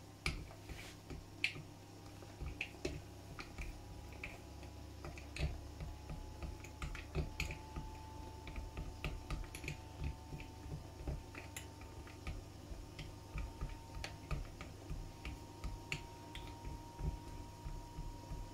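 Silicone spatula stirring chocolate pieces in a glass bowl, with irregular light clicks and taps of the spatula and the pieces against the glass, a couple a second, over a faint steady hum.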